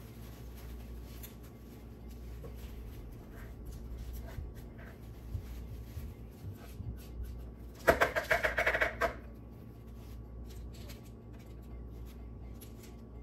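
Paper baking cups being separated and set into a metal muffin tin: faint crinkling and light ticks. A short, loud cry about eight seconds in.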